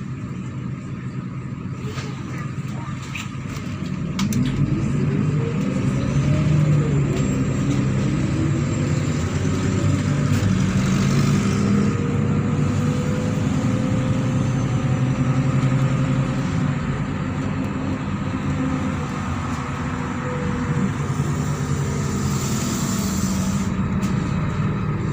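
MAZ-103 city bus's diesel engine accelerating, its note rising about four seconds in as the level steps up, then running steadily at speed, with a short hiss near the end.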